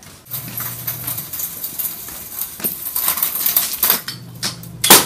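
Small metal objects clinking and rattling in quick irregular clicks, with one loud sharp clack just before the end.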